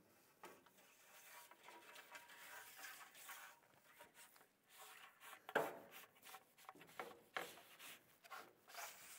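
Faint scraping of a black roofing-metal strip sliding along the channel of an aluminum snow bar, metal rubbing on metal, with a couple of sharper knocks about halfway through and a little later.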